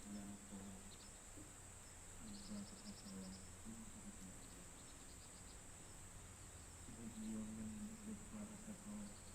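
A faint, steady chorus of autumn crickets and other insects. Over it, a distant low voice chants Buddhist prayer in long held notes, heard three times: at the start, about two seconds in, and about seven seconds in. Short trilled chirps come and go.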